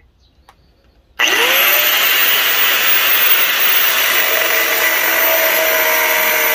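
Angle grinder with a cut-off disc switched on about a second in, spinning up with a brief rising whine and then running loud and steady. Near the end the disc is cutting into the steel of an old circular saw blade.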